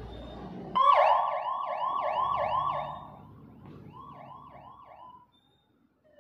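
Fire engine siren sounding in a fast yelp, rapid up-and-down sweeps about four a second. It starts abruptly about a second in, is loud for a couple of seconds, drops lower, and cuts off about five seconds in.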